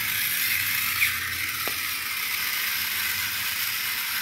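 Battery-powered toy military tank's small electric motor and gearbox running at full speed with a steady grinding whir, a single knock about a second in.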